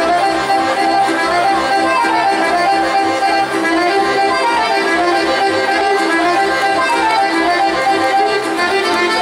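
Traditional folk dance music with a fiddle and accordion melody over a steady, even beat.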